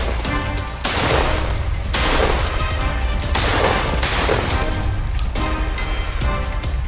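Saiga 12 semi-automatic 12-gauge shotgun firing several loud shots in quick succession, over background music.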